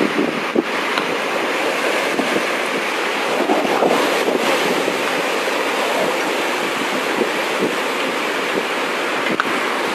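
Storm wind and sea waves during a typhoon: a steady rush of noise, with wind buffeting the microphone.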